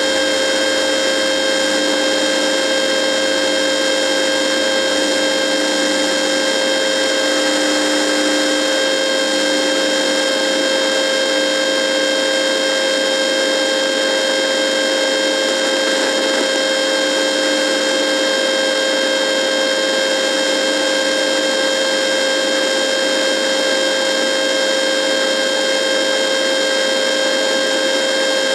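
Radio buzzing: an unchanging static hiss with a steady high-pitched whine on top of it. A fainter lower tone fades out about two-thirds of the way through.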